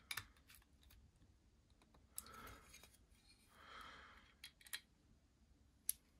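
Faint sounds of a small hand driver tightening the screws of a folding knife's frame: a few light clicks and two short scraping turns of the bit in the screw heads.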